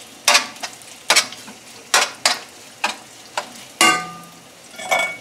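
Metal spatula scraping and stirring chicken pieces frying in olive oil in a metal frying pan, with strokes about once a second over a light sizzle. About four seconds in comes a louder, ringing metal clang on the pan.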